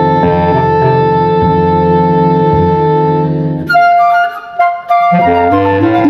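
Instrumental background music with long held notes. The bass drops out for about a second and a half past the middle, leaving only higher notes, then comes back.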